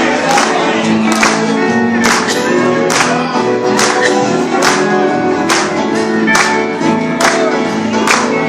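Live gospel music: an instrumental break with sustained chords and a steady beat of sharp percussive hits.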